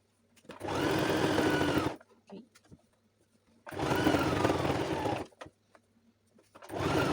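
Electric sewing machine running in three short bursts with pauses between, stitching a zigzag seam.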